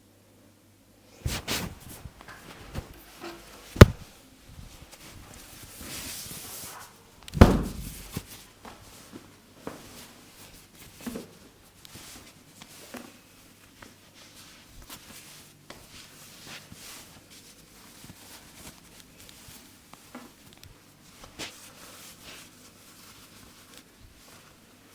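Head massage by hand: scattered slaps, taps and rubbing on skin and hair, with a sharp knock about four seconds in and a heavier thump about seven and a half seconds in.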